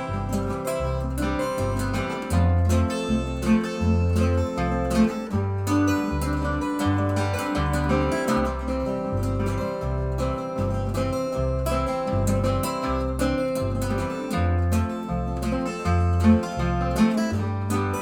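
Instrumental break of a country song: an acoustic guitar picking a lead over a steady alternating bass line, about two bass notes a second, with no singing.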